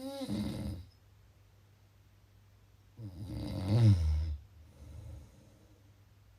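A person snoring in sleep: one snore at the start and a louder one about three seconds in, followed by a fainter breath.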